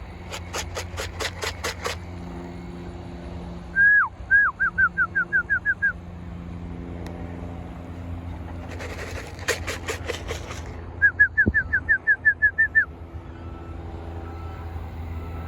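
A pigeon fancier calling his birds down to the loft. Bursts of rattling, about four shakes a second, come from a shaken feed can. They alternate with runs of short, repeated, slightly falling whistles, over a low steady hum.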